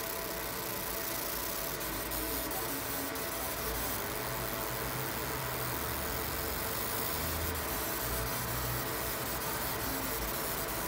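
Fiber laser marking machine running an engraving job: a steady whirring hum with some faint high ticks.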